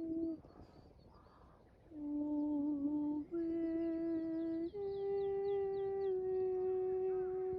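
Hum-like voice sounding a slow series of long held notes, each about a second and a half, stepping slightly up and down in pitch, with a silent gap of about a second and a half near the start. Small birds chirp faintly behind it.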